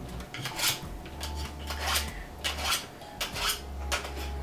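Fillet knife blade drawn repeatedly through a knife sharpener with steel and ceramic stages: a series of short scraping strokes, roughly one or two a second.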